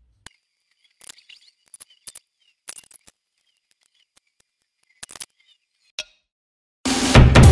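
Faint, scattered small clicks and rustles of makeup being handled: a sponge dabbed on the face and a plastic powder compact. Near the end, loud music with heavy bass cuts in.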